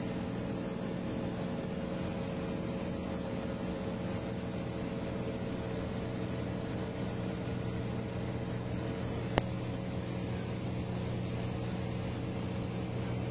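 Light airplane's engine and propeller droning steadily in cruise, heard inside the cockpit. A single sharp click sounds about nine seconds in.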